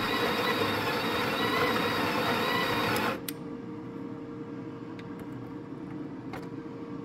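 Built-in conical burr grinder of a Breville Barista Express espresso machine grinding coffee beans into the portafilter, stopping abruptly about three seconds in. Afterwards there is a faint steady hum and a few light clicks.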